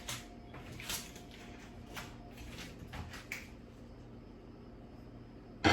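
A few faint clicks and taps of kitchen utensils being handled, spaced irregularly over a steady faint hum, with a sharp knock right at the end.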